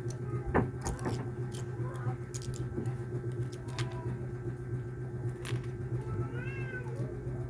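A cat meowing in a few short rising-and-falling calls, the clearest near the end, over a steady low hum, with scattered sharp clicks.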